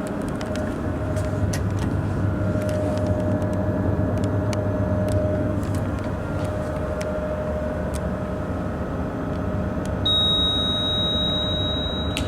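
Kone MonoSpace machine-room-less lift car travelling: a steady low hum and rumble inside the car, with faint clicks. A high steady beep comes in about ten seconds in and lasts about two seconds.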